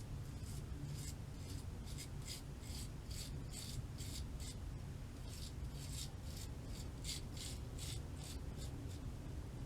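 3D printed Taipan safety razor's blade cutting whiskers through lather in short, quick scraping strokes, about three a second, with a brief pause about halfway through.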